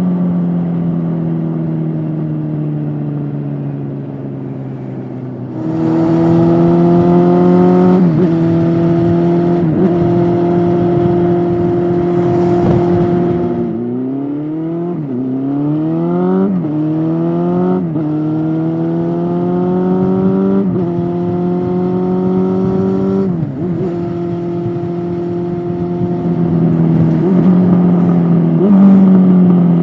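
Honda CB400SF's inline four-cylinder engine through a Yoshimura slip-on exhaust, heard from the rider's seat. The engine winds down for a few seconds, then picks up and holds a steady note. About halfway through it revs up hard through several quick upshifts, each a rising note cut off by a drop in pitch, then cruises, and revs up again near the end.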